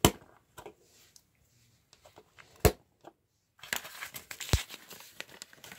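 Plastic Lego bricks being pressed together and handled: a sharp click at the start, another a little past halfway, then a spell of light clicking and rattling of pieces with one more sharp click in it.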